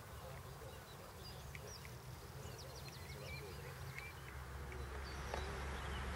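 Wild birds at a pond: small songbirds chirping and ducks quacking faintly. A low steady rumble comes up about four seconds in.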